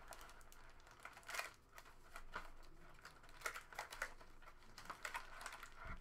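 Plastic wrapping and packaging of a basketball trading-card box crinkling and tearing in short bursts as the box is opened by hand.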